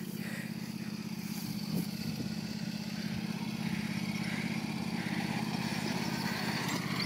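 John Deere LA145 riding mower's 22-horsepower engine running steadily, its even pulsing hum growing slowly louder.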